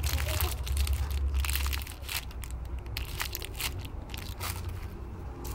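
Clear plastic bags crinkling and crackling as hands handle squishy toys sealed inside them, in irregular crackles with a low rumble of handling noise in the first two seconds.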